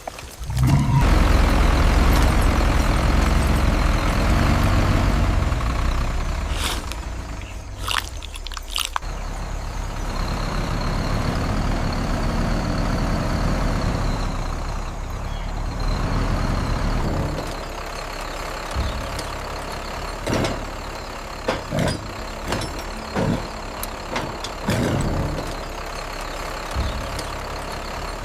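A heavy vehicle engine running with a steady low rumble that eases off after about 17 seconds, followed by scattered short knocks and clatters.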